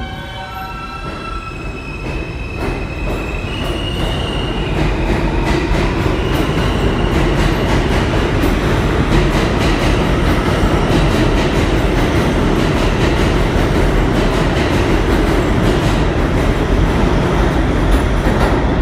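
MTA R160 subway train pulling out of the station. Its traction motors whine, rising in pitch in steps over the first few seconds, and the sound builds as the cars speed past with a fast clatter of wheels over the rail joints.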